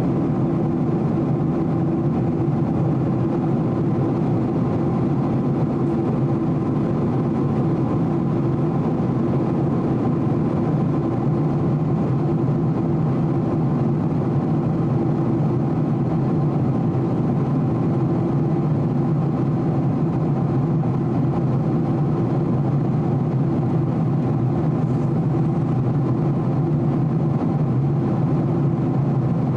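Steady cabin noise inside a Boeing 767-300 airliner in flight: the drone of its twin jet engines and rushing air, with a strong low hum.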